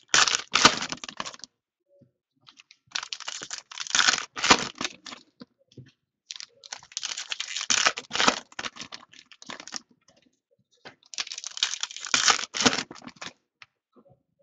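Foil trading-card pack wrappers torn open and crinkled by hand: four bursts of crackling, each a couple of seconds long, with short pauses between.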